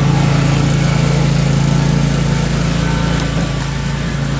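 John Deere X310 lawn tractor's engine running steadily under load, driving its 44-inch front-mounted snowthrower. The level eases slightly near the end.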